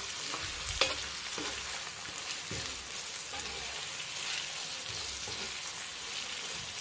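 Raw chicken pieces frying in oil with onion and ginger-garlic paste in a nonstick pan, sizzling steadily while a spatula stirs them. The spatula scrapes and knocks against the pan, with one sharp knock about a second in.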